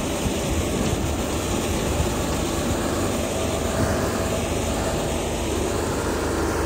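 Heavy diesel road-construction machinery running steadily, a continuous engine drone with a low hum.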